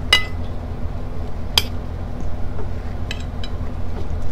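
Metal spoon clinking against a glass bowl while broth is spooned out: two clear, ringing clinks about a second and a half apart, then a couple of lighter taps near the end, over a steady low hum.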